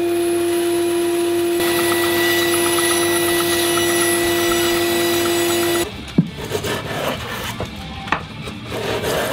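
A power saw running with a steady hum, cutting into pine from about one and a half seconds in. It stops abruptly about six seconds in, leaving quieter knocks and wood handling sounds, with a sharp knock just after the stop.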